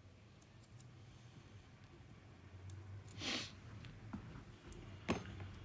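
Quiet small-parts handling at a repair bench: a short breathy hiss about three seconds in and a single sharp click about five seconds in.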